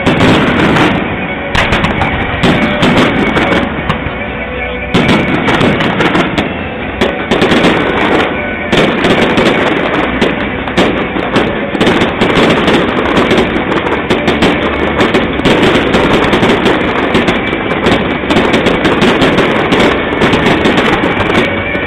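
Fireworks display: aerial shells bursting and crackling, many reports in quick succession that grow denser into a near-continuous crackle about halfway through.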